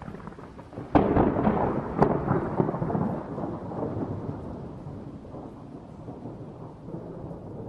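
Thunder sound effect: two sharp cracks about a second apart, then a long rolling rumble that slowly fades.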